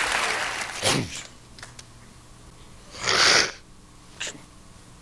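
Studio audience applause dying away in the first second, with a quick falling sound just after. About three seconds in comes a short breathy burst, followed by a single sharp click.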